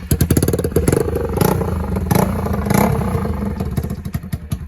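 Bajaj Pulsar NS200's single-cylinder engine running with no exhaust or bend-pipe fitted, firing straight out of the bare port as a loud rapid clatter of exhaust pulses. It is revved a few times in the middle, and the firing slows and quietens near the end.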